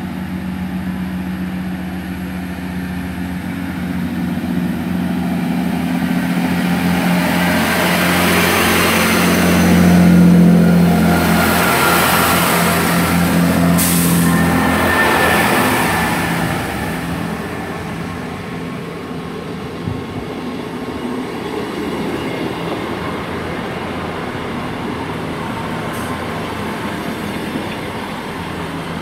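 GWR Class 166 diesel multiple unit running through the station with its diesel engines humming and rail noise. It grows louder to a peak near the middle, with a brief sharp noise at about that point, then fades to a steadier background.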